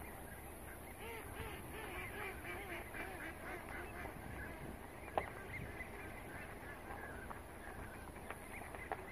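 A large flock of waterbirds on open water calling, many short calls overlapping into a steady chorus. A sharp click about five seconds in and another near the end.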